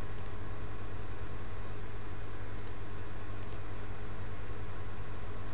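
Four short, sharp double clicks of a computer mouse over a steady electrical hum and hiss.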